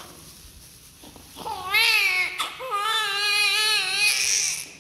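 Newborn baby crying: a short wail about a second and a half in, then a longer, steadier wail that stops just before the end.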